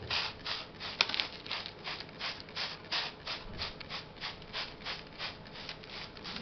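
Hand trigger spray bottle misting water over a plastic tray of seedlings, squeezed over and over at about three squirts a second, each squirt a short hiss.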